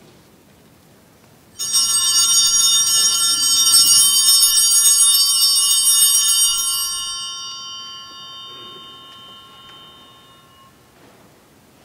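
Altar bells rung at the elevation of the consecrated host: a bright ringing of several steady tones that starts about a second and a half in, holds for about five seconds, then slowly dies away.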